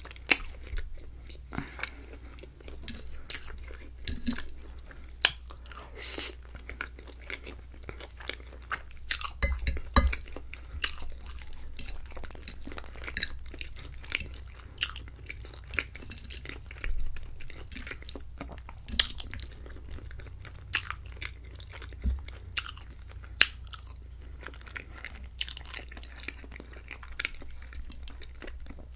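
A person chewing garlic bread and creamy alfredo pasta right at the microphone, with irregular crunches and clicks, a few of them louder.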